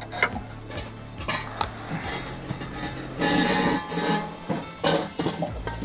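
Metal exhaust parts clinking and knocking as the steel back box is worked loose from its hanger, with a louder scrape about three seconds in.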